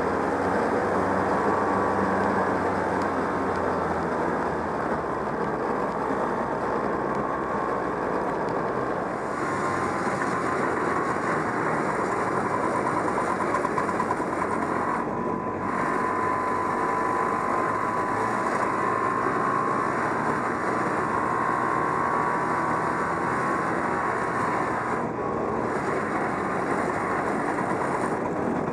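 1969 Polaris Mustang snowmobile's JLO 372 two-stroke engine running steadily as the sled travels along a snow trail. The sound shifts abruptly about nine seconds in and briefly twice more, where shots are cut together.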